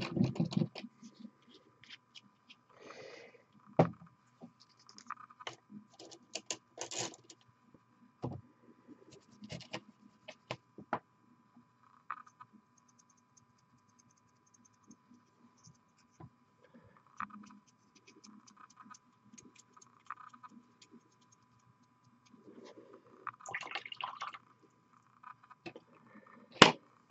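Scattered small clicks, taps and brief scrapes of miniature-painting tools and paint bottles being handled on a desk, with one sharp click near the end. A faint steady high hum sits underneath.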